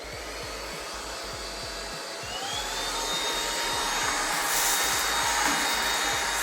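Vistefly VX cordless vacuum in handheld mode, its brushless motor starting up and running with a high whine and rushing air. About two and a half seconds in the whine rises in pitch and the sound gets louder as it is switched to maximum suction, then it runs steadily.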